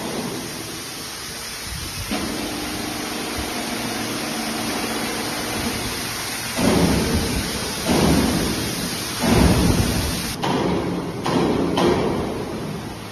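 Electric crane hoist humming steadily while a steel truck-scale module hangs on lifting chains. From about halfway, a series of loud low rumbles comes roughly once a second and covers the hum.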